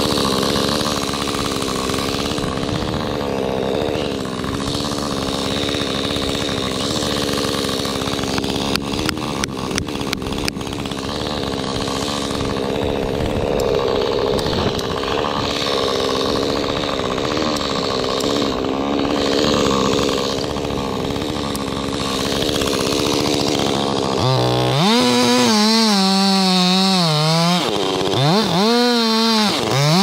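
Two-stroke chainsaw running steadily under load while cutting, with a short run of sharp clicks about nine seconds in. Near the end the saw revs up and down steeply, twice.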